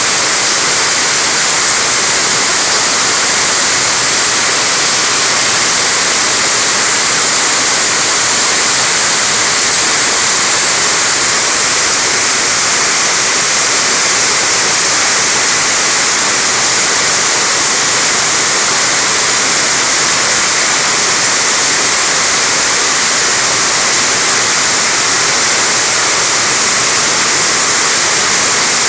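Heavy rain falling on a roof: a loud, steady, dense hiss, mostly high-pitched.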